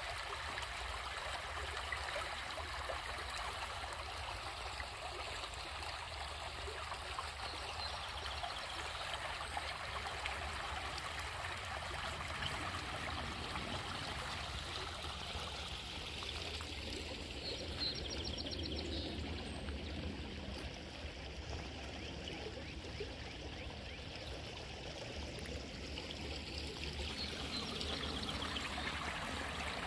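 Shallow creek running steadily over a pebble bed, water rippling and splashing around small rocks.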